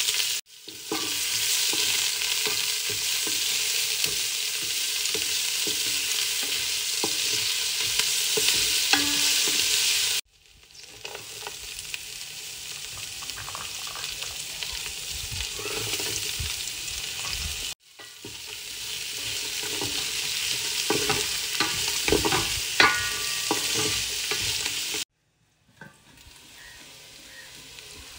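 Sliced onions, leeks and carrots frying in hot oil in a metal rice-cooker pot: a steady sizzle with a utensil stirring and clicking against the pot. The sound cuts out abruptly three times and starts again.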